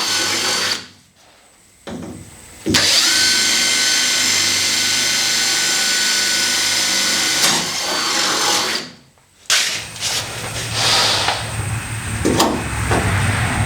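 Hand-held power tool running at high speed. It stops twice and spins back up each time, then runs rougher and more unevenly near the end.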